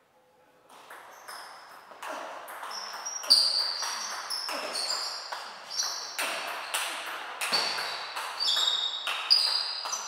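Table tennis rally: the celluloid ball struck back and forth with rackets and bouncing on the table, a run of sharp clicks starting about a second in, each under a second apart.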